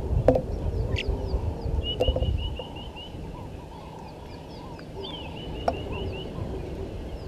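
Wild birds calling outdoors: runs of quick repeated chirps, about six a second, mixed with short high falling notes. A low rumble and a few sharp clicks in the first two and a half seconds are the loudest part.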